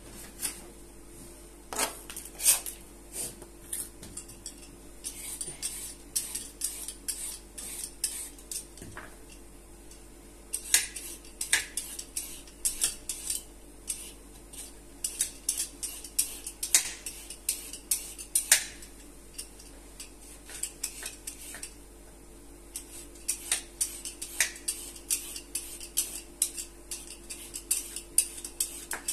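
Handheld vegetable peeler scraping down a carrot in quick repeated strokes, with light clicks and knocks against a plastic cutting board. The strokes come in bursts with a short pause about two-thirds of the way in, over a faint steady hum.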